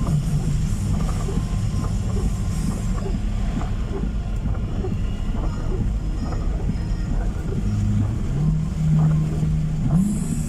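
Car driving, heard from inside the cabin: a steady low engine and road rumble, with the engine hum shifting up and down in pitch several times.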